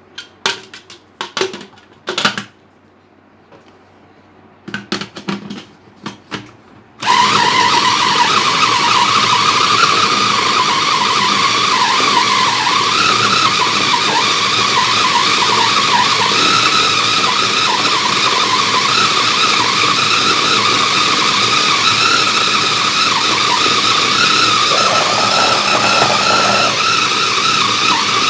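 Knocks and clatter as an electric food chopper is loaded and put together. About seven seconds in, its motor starts abruptly and runs steadily with a loud, wavering whine, mincing chunks of raw red meat.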